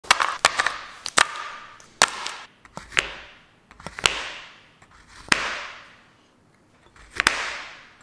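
A meat cleaver chopping a Snickers bar on a cutting board: about ten sharp chops, unevenly spaced roughly a second apart, each fading out over about a second.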